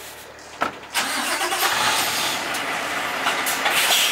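A short knock as the cab door shuts, then about a second in the Scania R650's 16-litre V8 diesel starts and settles into a steady run.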